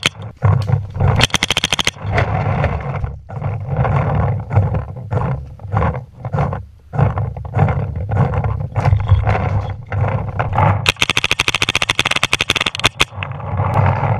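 MacDev Drone2 paintball marker firing rapid strings of shots at about ten a second: a short string about a second in and a long one from about eleven seconds to the end. Between the strings there is a loud, rough rushing noise that stops and starts.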